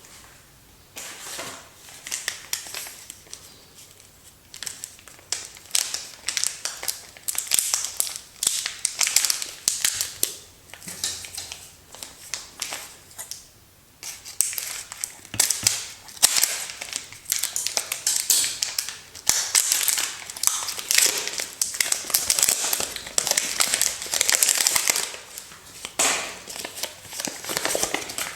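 Soap packaging being unwrapped by hand: paper and plastic wrappers crinkling and tearing in repeated bursts, with a brief pause about halfway through.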